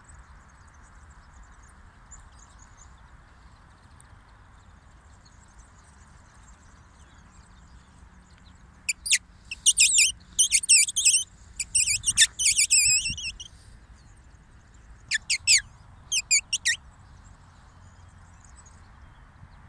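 Common linnets calling: quick, sharp twittering flight calls in two loud spells, one about halfway through and a shorter one a few seconds later, with faint calls before them.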